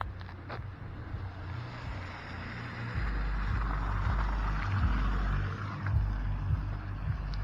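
Wind buffeting the microphone in gusts during a snowstorm, under a rushing hiss that swells in the middle.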